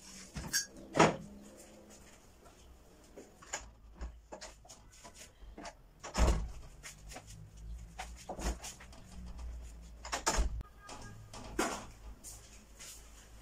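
Household knocks and clicks: a ceramic mug and a plate set down on a wooden dining table about a second in, then scattered lighter clicks and two heavier thuds later on.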